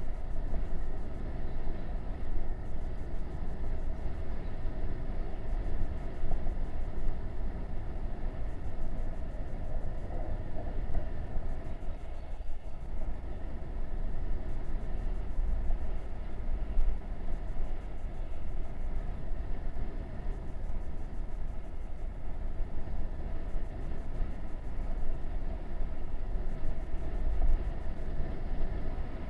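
Wind buffeting on a camera mounted on a moving motorbike or similar vehicle, a continuous low rumble with a steady engine running beneath it.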